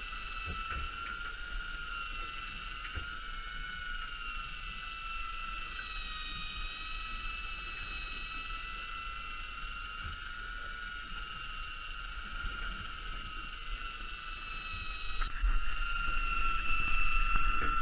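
A steady high-pitched mechanical whine whose pitch wavers slowly up and down, with a low rumbling noise growing louder in the last few seconds.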